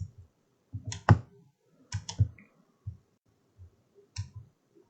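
A few scattered clicks of a computer mouse and keyboard, spaced irregularly about a second apart.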